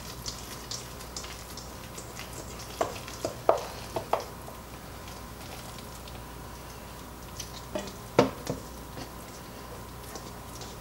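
A few light knocks and clinks from a stainless steel mixing bowl being tipped and turned over, in two small clusters, the loudest a sharp knock about eight seconds in.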